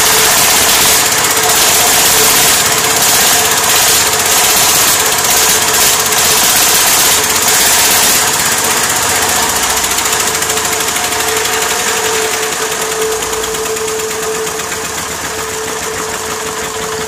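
Home-built diesel engine running steadily with a loud clatter and a strong steady hum. It grows somewhat quieter over the second half.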